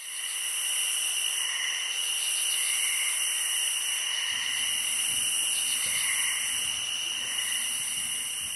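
Night chorus of insects: a steady high-pitched shrill, with softer calls pulsing every second or so.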